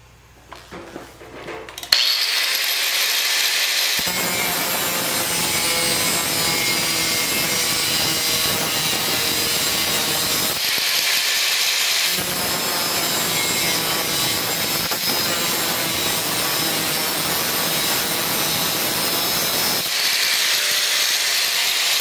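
4-inch angle grinder with a cutoff wheel switched on about two seconds in and cutting a notch into a steel roof-bolt bar, a steady harsh grinding. The wheel comes briefly off the metal around the middle and again near the end, running free with a higher whine before biting in again.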